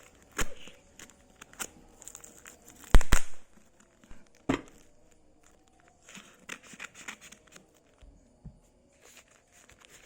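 Packaging on a parcel of books being torn open and crumpled by hand: scattered rustles and rips, the loudest tear about three seconds in and another sharp one about a second and a half later, then a stretch of crinkling.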